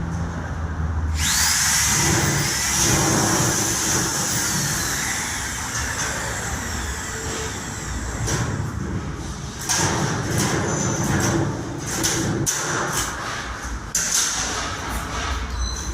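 A small electric motor starts with a high whine that rises quickly about a second in. Irregular clicks and knocks follow in the second half.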